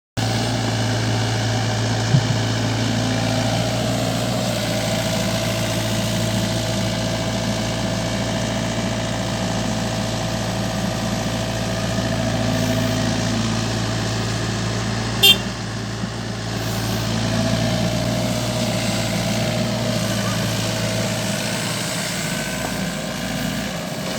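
Diesel engines of an excavator and dump truck running steadily at low revs, with one short sharp click about fifteen seconds in.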